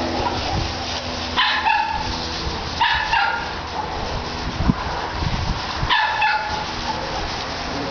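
Shetland sheepdog barking at sheep as it herds them: three short, sharp barks, the first two about a second and a half apart, the third after a pause of about three seconds.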